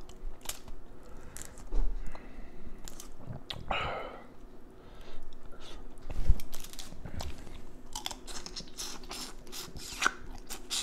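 A person eating boiled crawfish: chewing, with repeated irregular cracks and crunches of shell being broken apart.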